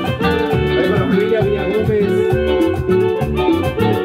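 Background music in a Latin style, with a steady beat.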